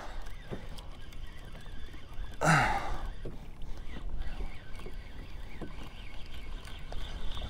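A man's short grunt, falling in pitch, about two and a half seconds in, the effort of fighting a hooked fish from a kayak. Scattered small clicks and knocks sound around it.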